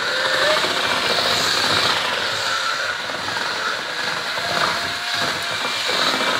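Electric drill with a whisk mixing paddle running steadily, churning tinted water-based paint in a bucket as the colourant is blended in.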